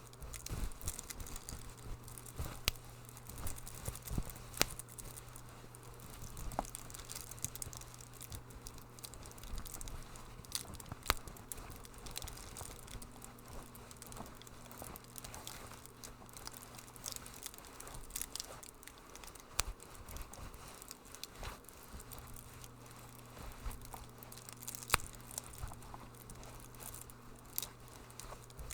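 Wood fire in a fireplace crackling, with irregular sharp pops and snaps over a soft hiss and a steady low hum.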